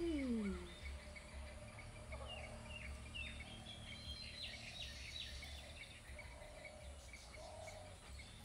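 Birds chirping outdoors, a run of quick notes that each drop in pitch bunched in the middle, over a steady low hum. Right at the start a short moan slides downward in pitch.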